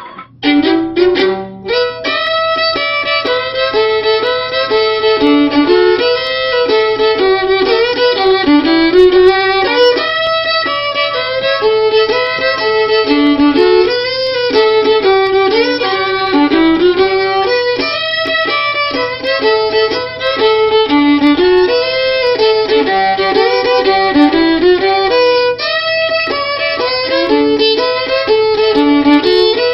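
A solo fiddle playing a fast, lively tune that circles through a repeating melodic phrase, starting about half a second in.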